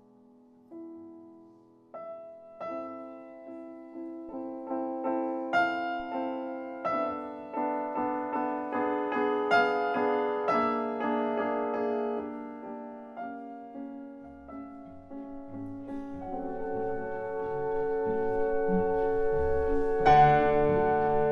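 Grand piano being played. It begins with a few quiet single notes, then a string of separate notes builds steadily louder. Fuller chords and low bass notes come in during the second half, swelling to the loudest point near the end.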